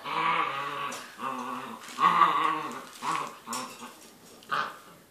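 Puppies growling in a string of short growls as they play-fight over a tug toy, dying away near the end.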